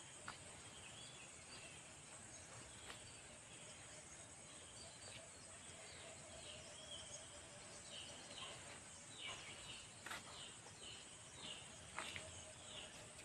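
Faint outdoor ambience: a steady high hiss with short bird chirps, more frequent in the second half, and a few soft clicks.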